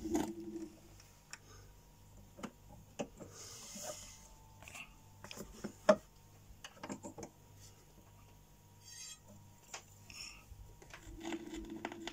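A reggae record's music fades out, then a 7-inch vinyl single is handled on a turntable: scattered small clicks and rubs, with one sharp click about six seconds in. The next side's music starts again about eleven seconds in.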